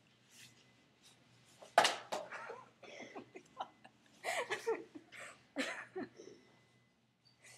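Muffled voices and giggling in short, irregular bursts, with a sudden loud burst about two seconds in.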